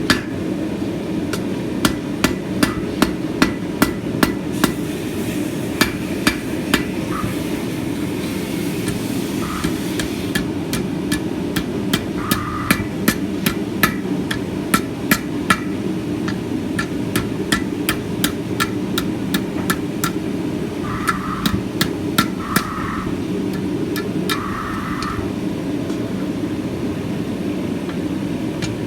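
Hand hammer striking hot scrap steel on an anvil while forging small brackets, in runs of quick, ringing blows with short pauses between. A steady low roar runs underneath.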